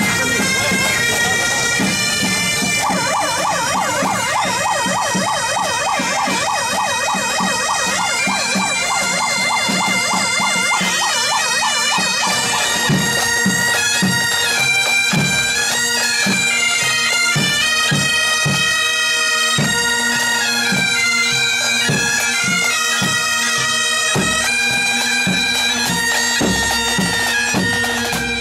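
Marching pipe band playing: bagpipes with a steady drone under the melody, and drumbeats coming in at an even pace about halfway through.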